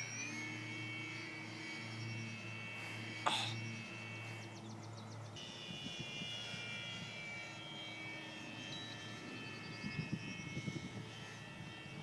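Electric 1050 kV outrunner motor and 11x4.7 propeller of a foam RC warbird in flight: a steady whine that shifts pitch slightly about five seconds in. There is a sharp click a little after three seconds and a few low thumps near the end.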